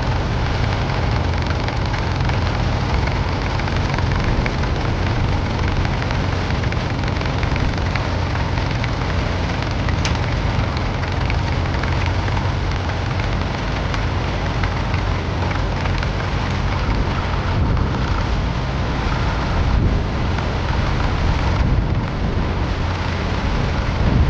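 Tractor engine running steadily under a dense, even noise with a heavy low rumble.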